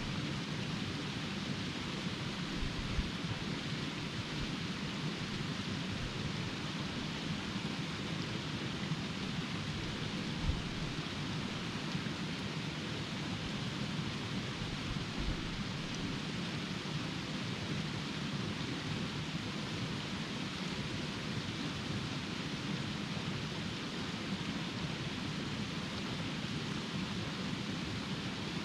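Small mountain creek's water rushing steadily, with a few brief low bumps.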